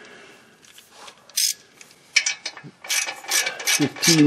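Hand ratchet with a 15 mm socket clicking as it runs a nut onto the exhaust Y-pipe flange stud. A few scattered clicks come first, then a run of quick ratcheting strokes from about two seconds in.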